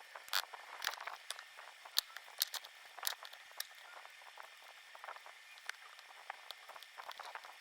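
Irregular small clicks, ticks and short scrapes of tools and fingers on the metal and plastic parts of an iPod Classic as it is taken apart. The sharpest click comes about two seconds in.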